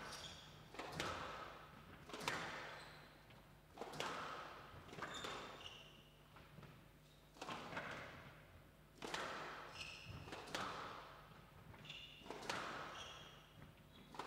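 Squash rally: the ball is struck back and forth, with a sharp crack of racket and ball off the walls about every one and a half seconds, echoing in the hall. Short high squeaks of court shoes on the wooden floor fall between the shots.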